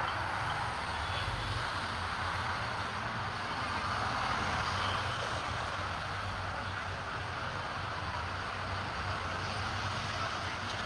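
A vehicle in motion: a steady low engine hum under an even rushing noise.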